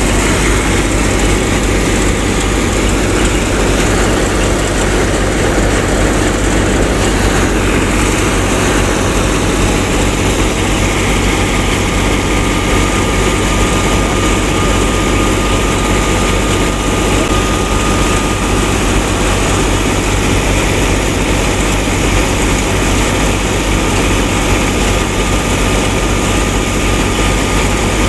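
A miniature model wheat thresher running steadily, its belt-driven threshing drum and fan whirring while threshing wheat. A faint steady whine joins in about a third of the way through.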